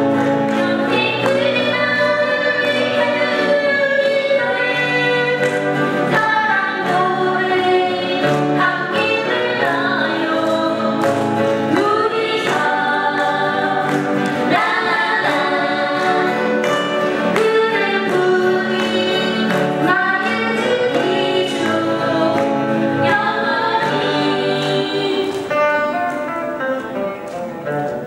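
A small acoustic folk group singing together in harmony over several strummed steel-string acoustic guitars, with a steady strumming rhythm; the music eases off slightly near the end.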